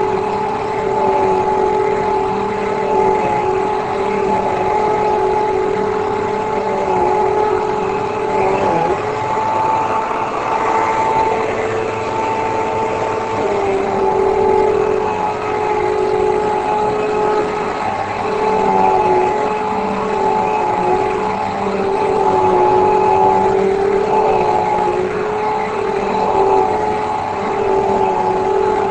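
Hoover Elite Rewind bagless upright vacuum cleaner running while vacuuming: a loud, steady motor whine whose pitch dips and shifts slightly every few seconds.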